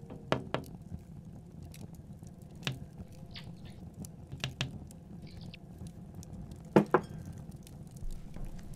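Knocks on a window, mostly in quick pairs: a double knock, a single one, then two more double knocks, the last pair the loudest. A steady low background runs under them.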